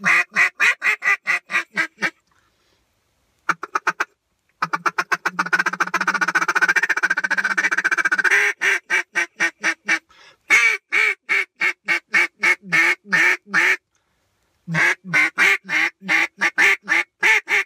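Handmade Drake Storm duck call with an Echo insert and shaved reeds, blown in runs of mallard hen quacks. A few seconds of fast rolling chatter sit in the middle, and two more quack sequences of about a dozen notes each follow, with short pauses between the runs.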